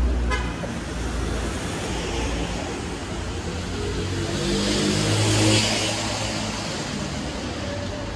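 Street traffic: car engines running at low speed and tyres on asphalt, with one vehicle passing close and loudest about five and a half seconds in.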